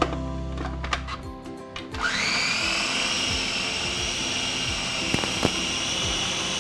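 Electric mini food chopper starting up about two seconds in, its whine rising quickly and then running steadily as it blends garlic, lemon rind, herbs and olive oil toward a fine paste. Background music plays before it starts.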